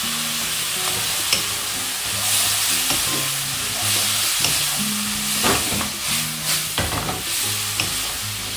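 Tofu, mushroom and onion stir-fry sizzling in a non-stick wok, moistened with a little water, stirred and tossed with a wooden spatula. It is a steady sizzle with scrapes of the spatula against the pan, several coming in quick succession about two-thirds in.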